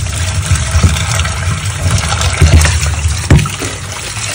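Tap water running steadily into a plastic bowl in a stainless steel sink while a hand swishes the contents, with a few dull bumps, the sharpest about three seconds in.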